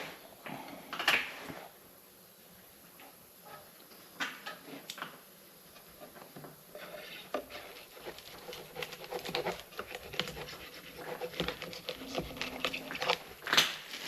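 A gasket being unwrapped from its packing and plywood backing: scattered rustling, scraping and light knocks, with a louder knock about a second in and another near the end.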